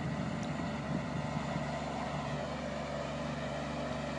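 Engine of a self-propelled boom sprayer running steadily as the machine drives and sprays.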